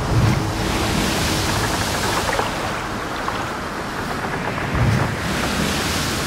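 Steady rushing noise, swelling with a low rumble just after the start and again about five seconds in.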